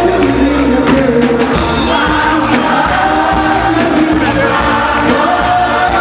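Gospel music: several voices singing a melody over instruments, with a regular percussive beat.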